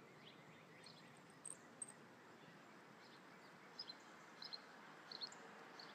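Near silence: faint outdoor background with a few short, faint bird chirps scattered through it.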